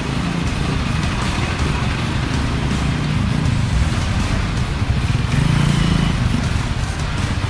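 Congested road traffic: heavy trucks' engines running close by, a steady low rumble with mixed road noise. The engine hum grows louder about five seconds in.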